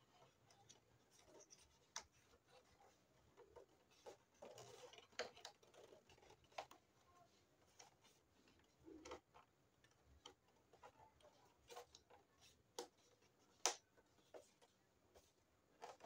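Faint handling noise: scattered small clicks and taps, with a short scratchy rustle about four to five seconds in and one sharper click near the end.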